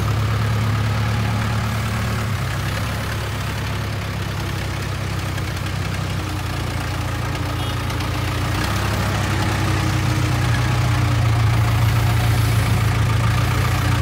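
Case 580K backhoe loader's four-cylinder diesel engine running steadily at low revs as the machine moves slowly. It grows louder in the second half as the backhoe draws close.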